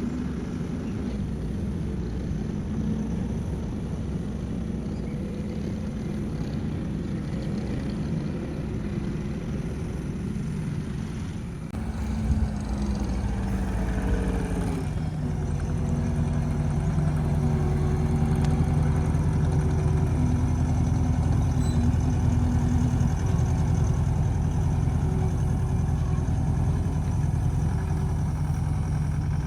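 A motor vehicle or machine engine running steadily. About twelve seconds in the sound changes abruptly, and around fifteen seconds its pitch drops and settles into a lower, steady run.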